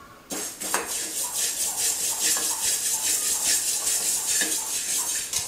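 Steel ladle stirring fenugreek seeds as they dry-roast in a stainless-steel kadai: a steady scratchy rattle of seeds scraped across the metal, starting a moment in.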